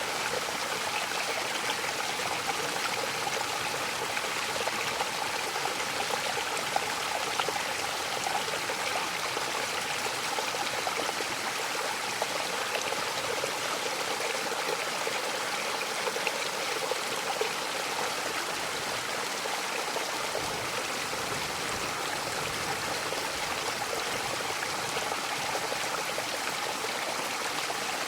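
Mountain waterfall: a steady rush of falling water, with fine splashing crackle over it.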